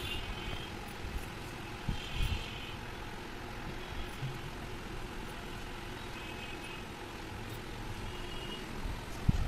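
Steady low background rumble with faint high-pitched tones now and then, and dull knocks about two seconds in and near the end as the cylinder head is handled.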